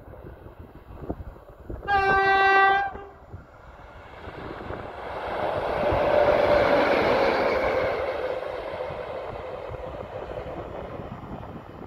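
ET22 six-axle electric locomotive sounding its horn once, one steady note lasting about a second, about two seconds in. The locomotive, running light without wagons, then passes: the running noise builds to a peak a few seconds later and slowly fades.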